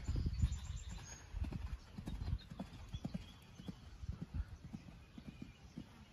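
Hoofbeats of a horse cantering on a sand arena: a quick, uneven run of dull thuds, louder in the first couple of seconds and fainter after.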